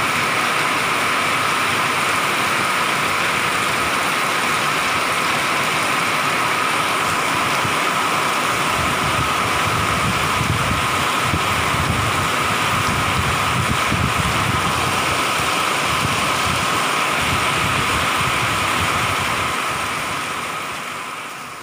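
Heavy rain pouring down steadily, a constant loud hiss of rain on the street and surfaces. A low rumble swells under it around the middle, and the sound fades out near the end.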